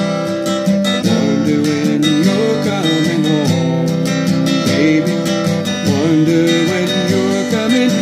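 Acoustic guitar strummed and picked in a steady rhythm, with a man's voice singing along in places.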